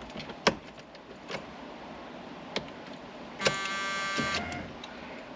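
Small metal clicks of a key and ignition lock cylinder being worked in a steering column, then about a second of the car's steady key-in-ignition warning buzzer sounding about three and a half seconds in.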